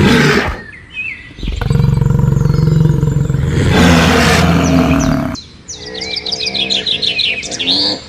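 A large animal's deep, rough roar lasting about four seconds, followed from about halfway through by rapid high-pitched bird chirps and trills.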